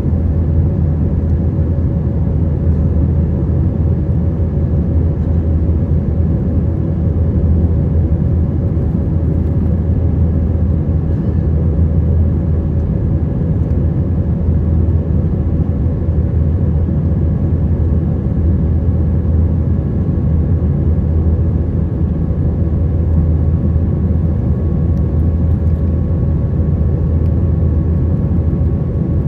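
Steady cabin noise of an Airbus A321 in flight: a constant deep engine and airflow rumble, with a few faint steady tones above it.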